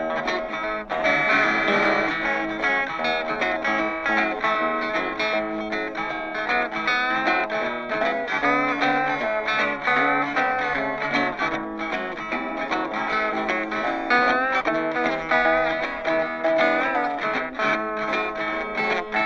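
Background music led by guitar, with bending melodic notes over a steady rhythm.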